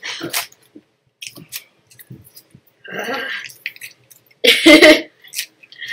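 Plastic candy-bar wrapper crinkling in the hands as it is torn open, in short scattered crackles. About four and a half seconds in comes a short, loud vocal sound.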